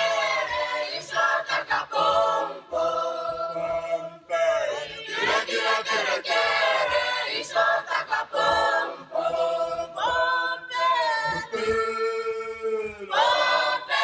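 A choir of voices singing together in harmony, unaccompanied, with a low note held underneath the changing melody lines.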